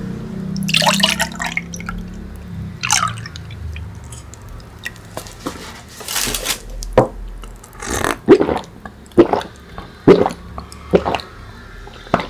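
A drink poured from a paper carton into a glass mug, gurgling and splashing for about the first two seconds. Then, from about seven seconds in, a run of loud swallowing gulps about a second apart as it is drunk.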